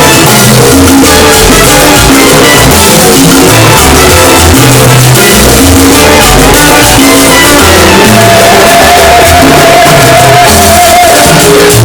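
Loud Latin dance music at a club, a bass line and percussion keeping a steady beat, with one long held note from about eight seconds in.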